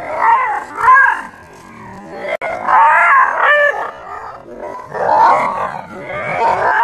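A dog barking and growling in several short outbursts, one pitched call after another.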